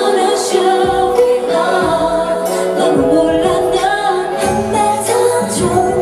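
K-pop girl-group song over the stage speakers: female vocals over a pop backing track with a steady beat.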